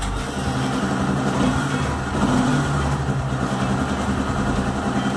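Honda CB650F's inline-four engine idling steadily.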